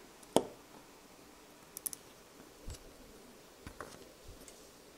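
Small clicks and light knocks of a CD4017 chip being pressed by hand into its 16-pin IC socket on a circuit board, with one sharp click about half a second in and softer taps after.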